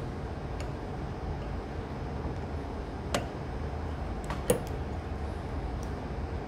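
A few small, sharp ticks from a metal whip finish tool being turned around the thread head of a fly in the vise and then slipped off, the loudest about four and a half seconds in, over a steady low background hum.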